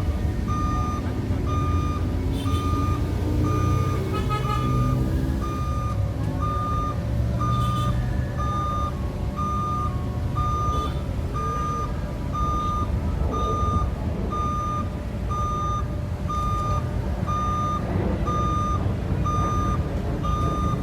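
Excavator travel alarm beeping steadily about twice a second over the diesel engine running, with the engine note rising and falling as the machine works.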